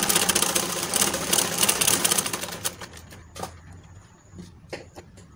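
Plaza sewing machine stitching a line through cloth with a rapid, even clatter that stops about two and a half seconds in, followed by a few light clicks and a sharper click near the end as the cloth is handled at the presser foot. It is a test seam on a machine that is skipping stitches, which the owner traces to the needle bar having slipped up so the needle does not go deep enough.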